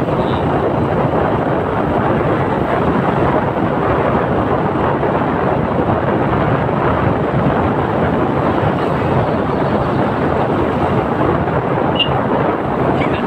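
Wind buffeting the microphone on a moving motorcycle, a steady loud rush of noise with the bike's running and road noise mixed in.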